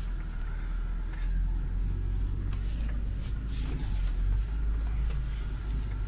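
UAZ Patriot's ZMZ Pro four-cylinder petrol engine running under light load while the vehicle crawls over rough off-road ground: a steady low drone, with a few faint knocks and rattles.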